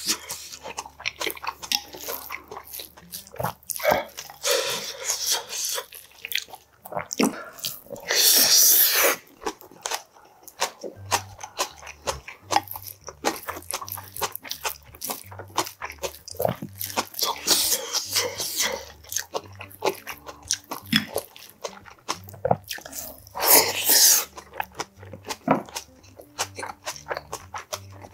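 Close-miked eating sounds of a Korean meal of kimchi stew: steady chewing and crunching with many small clicks of a spoon and bowl, and two longer, loud slurps of hot stew, about eight seconds in and again near twenty-four seconds.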